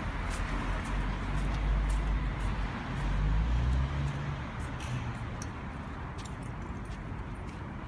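Street traffic: steady hiss of passing vehicles, with a heavier vehicle's low engine rumble swelling and passing from about one to four seconds in.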